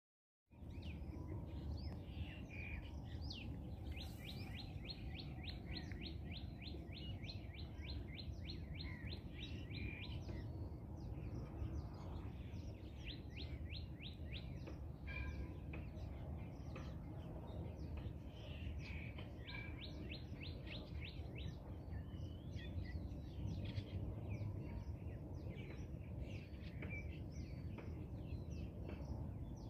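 Birds calling, including runs of quick high notes at about four a second that come three times, each lasting a few seconds, over a steady low outdoor background rumble.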